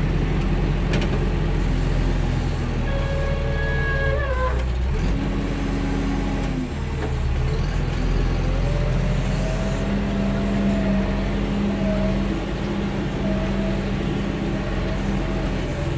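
JCB backhoe loader's diesel engine running, heard from inside the cab while the machine levels soil. A whine sits over the engine and shifts pitch several times as the machine works.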